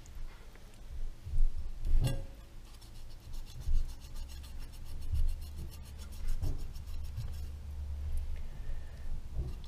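Kitchen knife scraping and cutting fat and skin off raw chicken drumsticks in a plastic bowl, with low rubbing and handling noise and a few soft knocks, the clearest about two seconds in.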